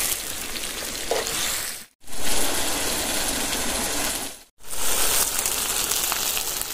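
Chilies frying in hot oil in a pan, a steady sizzle that cuts out abruptly twice.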